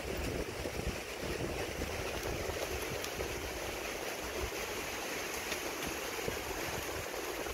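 Wind rushing through the leaves of a tree canopy, a steady rustling hiss, with gusts buffeting the microphone as an uneven low rumble.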